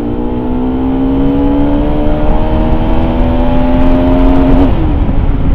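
Motorcycle engine pulling hard on full throttle during an overtake, its pitch rising steadily, then dropping abruptly about four and a half seconds in. Heavy wind noise sits under it.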